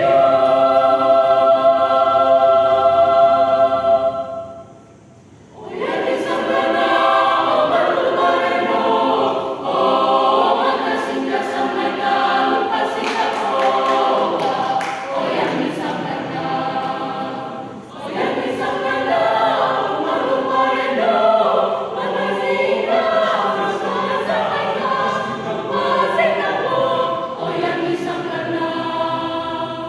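Mixed choir singing a cappella in several parts. They hold a chord for about four seconds, break off for about a second, then come back in with moving parts that run on to the end.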